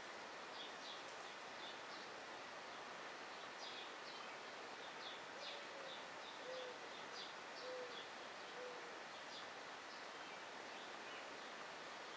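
A dove coos four times, low and about a second apart, in the middle of the stretch. Many short, high chirps from small birds sound throughout over a steady outdoor hiss.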